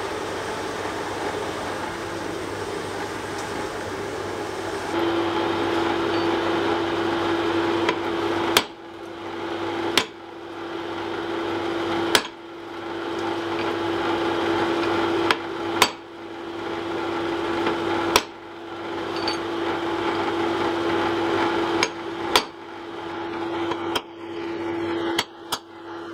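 Blacksmith's hand hammer striking red-hot wrought iron on an anvil: about ten separate sharp blows, one to three seconds apart, starting several seconds in, over a steady hum.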